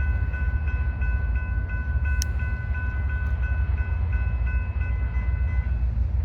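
Railroad grade-crossing bell ringing in a rapid, even repetition of about three strikes a second, stopping shortly before the end, over a steady low rumble.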